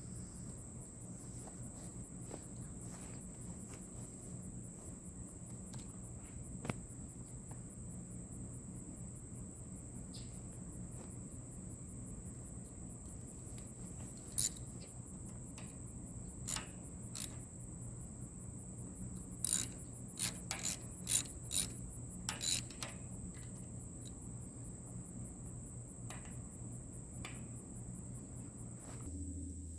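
Crickets chirring steadily, with a low hum underneath. Around the middle comes a scattered run of about a dozen sharp clicks, thickest a few seconds before the end.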